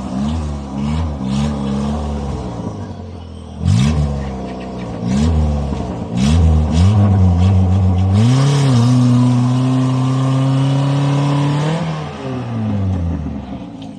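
Off-road 4x4's engine revved in repeated short blips, then held at high revs for about three seconds before dropping back to idle. A sharp clatter comes about four seconds in.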